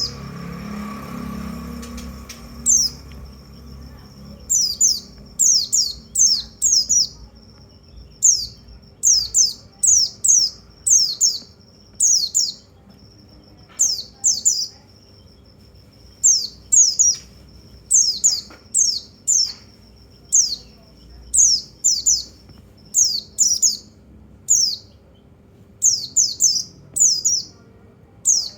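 White-eye (pleci, Zosterops) calling: sharp, high chirps that sweep down in pitch, in quick clusters of one to four, repeated every second or two, as a song-trigger recording for pleci birds. A thin, steady high whistle runs between some of the clusters.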